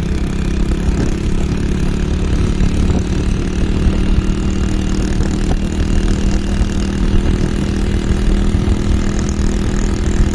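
Motorcycle engine running at a steady speed while riding, its pitch holding even, with wind rumbling on the microphone.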